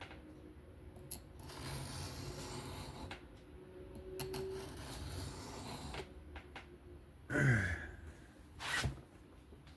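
Steel knife blade drawn across a sharpening stone in two long freehand strokes, a soft scraping hiss. About seven seconds in comes the loudest sound, a short human noise falling in pitch, then a brief rustle.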